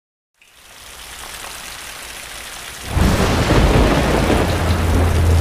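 Intro-sting sound effect of a rainstorm: rain hiss fades in, then a loud thunder crack about three seconds in turns into a heavy rumble over a steady deep drone.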